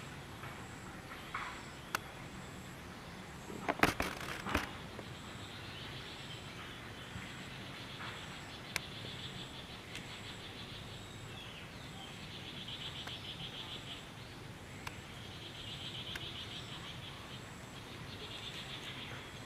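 Forest ambience: insects buzzing in rapidly pulsed stretches over a steady low hiss, with a cluster of sharp clicks about four seconds in.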